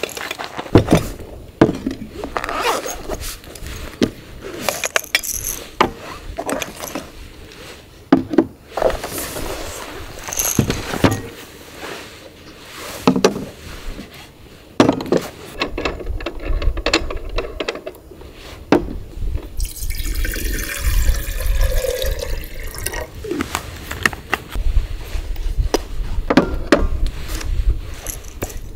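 Camp cookware being handled, with scattered clicks and knocks, and liquid poured for a few seconds about two-thirds of the way through.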